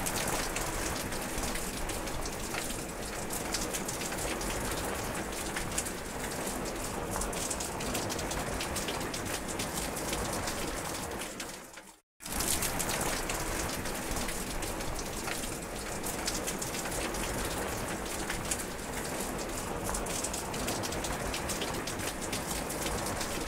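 Steady rain falling: a dense, even hiss flecked with many single drops ticking. It cuts out for a moment about halfway through, then resumes at the same level.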